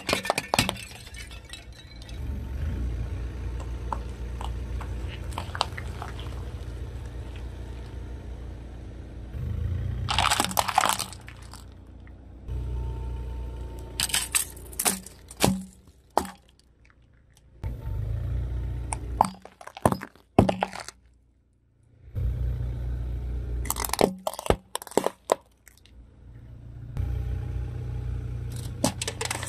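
A car's tyre creeping over small objects on concrete: a low rumble of the car rolling slowly forward, broken several times by sharp cracks and crunches as plastic and other items are crushed under the tyre.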